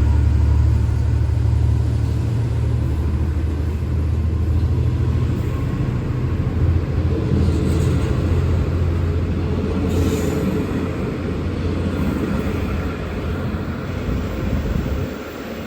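V/Line N class diesel-electric locomotive's engine running under power with a deep steady note and rumble, slowly fading as the train moves off, then dropping away near the end.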